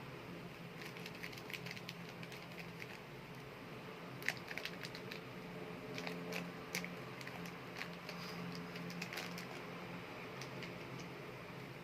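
Hands handling super air clay, giving scattered clusters of small crackling clicks, the sharpest about four seconds in, over a steady low hum.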